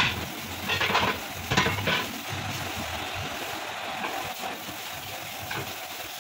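Iron tyre levers scraping and knocking against a tractor wheel's steel rim as the bead of a large rear tyre is worked over it. Three louder scrapes come in the first two seconds, then a steady hiss of rubbing.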